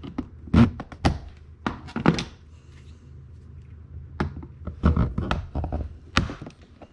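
Irregular knocks and clicks from a tool working under a plastic trim strip on a 2015 Chevy Malibu door, prying it loose.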